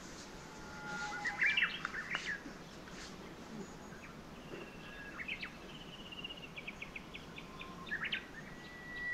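Wild birds chirping and calling over a faint steady hiss: a flurry of short notes about a second and a half in, a fast run of evenly spaced chirps in the middle, and more calls near the end.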